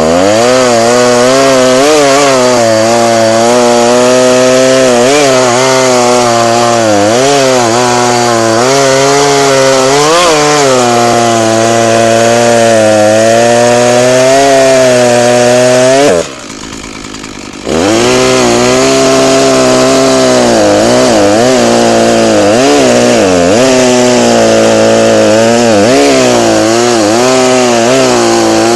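Echo CS-490 two-stroke chainsaw run at full throttle while bucking firewood logs, its pitch repeatedly sagging and recovering as the chain bites and clears the wood. About 16 seconds in the throttle is released and it drops to idle for about a second and a half, then revs back up for further cuts.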